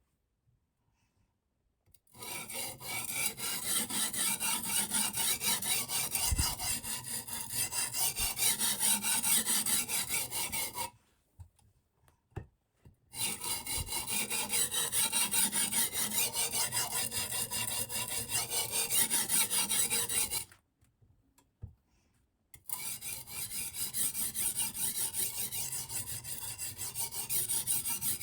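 Silicon carbide oil stone on a guided sharpening system, stroked rapidly back and forth along a Damascus steel knife's edge with a gritty scraping. It comes in three runs of strokes, each several seconds long, with short pauses between.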